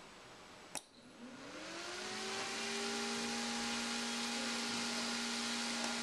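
A single click from the receiver board's electromechanical relay pulling in, then a square DC cooling fan spinning up as the relay switches its power on. Its whir and air rush rise in pitch over about a second and a half, then run steady.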